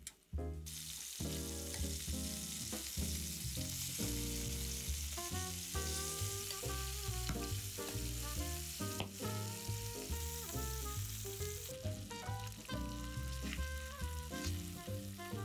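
Food sizzling as it fries in hot oil in a pan, the hiss starting suddenly about a second in and then holding steady. Background music plays along.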